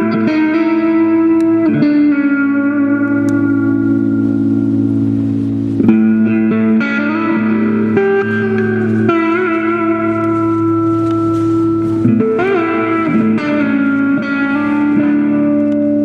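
Electric guitar playing slow, long sustained notes with string bends, over steady held low notes, with new notes struck every few seconds.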